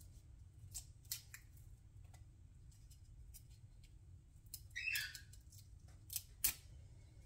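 Small kitchen knife peeling and trimming a garlic clove in the hand: scattered faint clicks and snips as the blade cuts through the papery skin. There is a short scraping crunch about five seconds in and a sharper click a moment later.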